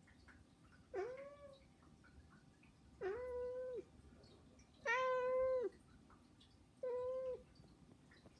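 Domestic cat meowing four times, about two seconds apart, each meow a steady held note; the third is the loudest. These are begging meows, a cat asking for food.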